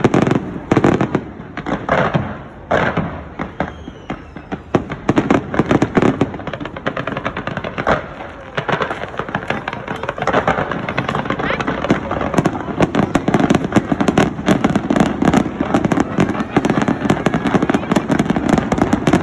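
Fireworks going off: a few loud separate bangs at first, then from about nine seconds in a dense, rapid crackle of many small pops.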